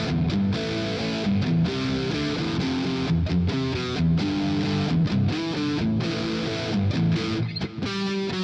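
Scorpion LP610 Les Paul-style electric guitar being played, strummed chords and notes changing every second or so with short breaks between phrases.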